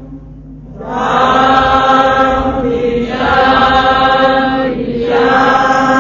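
Sanskrit devotional chanting in three long, drawn-out sung phrases over a steady drone, starting about a second in.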